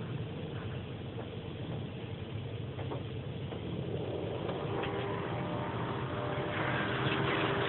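Automatic car wash machinery running, heard from inside the car's cabin: a steady low hum with hiss from water and soap spraying onto the car. About halfway through, a steady motor whine joins and the sound grows louder.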